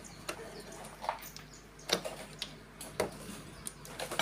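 Scattered light metallic clicks and taps of a hand tool and small parts inside a Honda Revo's opened engine as the upper roller rocker arm is worked loose, about one click every half second to second, with a sharper, ringing click near the end.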